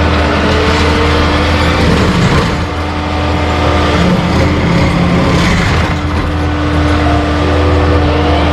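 A heavy machine's engine running steadily and loudly, with whining tones that glide up and down over it.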